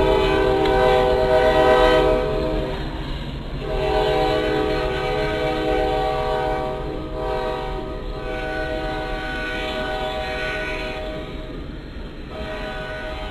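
Diesel freight locomotive's air horn sounding a chord of several tones in long blasts, breaking off briefly about three seconds in and again near the end, over the steady rumble of freight cars rolling past.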